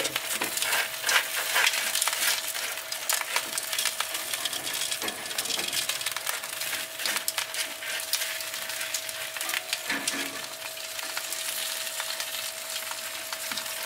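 Roasting pork hock's skin and rendered fat sizzling and crackling with dense fine popping, as the hock is brushed with its own hot drippings. A faint steady hum runs underneath.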